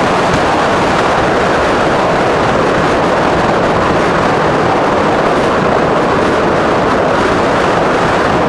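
Steady loud rush of wind and tyre noise from a Qulbix Raptor electric bike riding at speed on asphalt, even and unbroken throughout.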